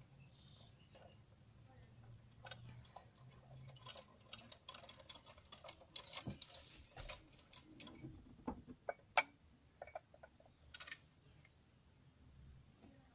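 Irregular light clicks and taps, scattered through the middle of the stretch, with a faint low steady hum in the first few seconds and a short high chirp about seven seconds in.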